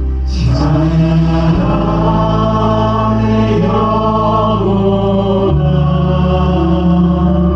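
A church praise team singing a slow worship song over held low instrumental chords, the bass note changing twice.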